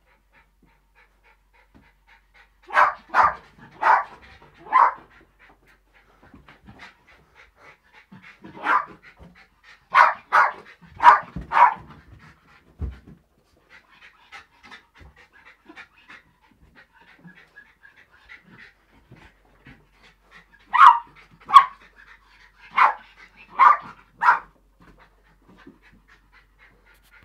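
Small Jack Russell terrier play-barking at a balloon: three bouts of four or five quick, sharp yaps, with quieter panting in between.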